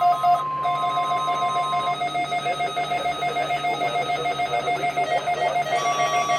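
Electronic alert tones from NOAA Weather Radio broadcasts during a Required Weekly Test. A steady tone lasts about two seconds over a rapidly pulsing, beeping tone that runs throughout, and a second steady tone comes in near the end.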